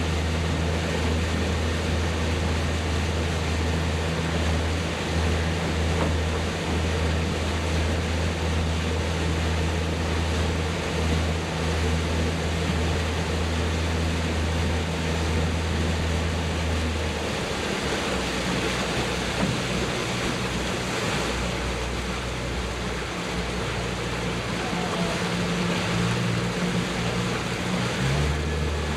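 A motorboat's petrol engine running steadily under way, with water and wind rushing past the hull. The engine note changes about two-thirds of the way in and steadies again near the end.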